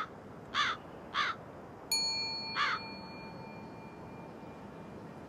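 A crow caws four times, and about two seconds in a small bell, the comic 'chiin' of a Buddhist orin bell, is struck once and rings, slowly fading over about three seconds. The sound effect marks a flop and a dejected mood.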